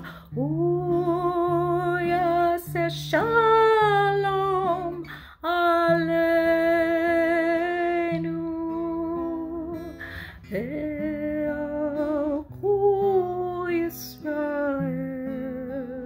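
A single voice humming a slow, wordless melody in long held notes that slide up into each note, over a soft acoustic guitar accompaniment.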